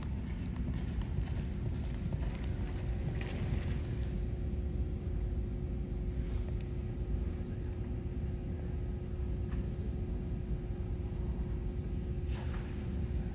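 Hoofbeats of a horse loping on soft arena dirt during the first few seconds, fading out as the horse comes to a stop. A steady low rumble and hum run underneath.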